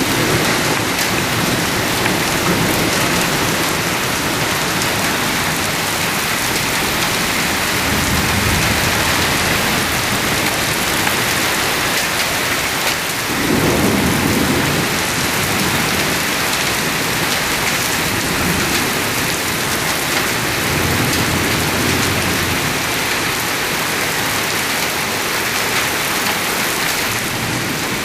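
Torrential rain pouring steadily and hard, with thunder rumbling low several times, the loudest roll about halfway through.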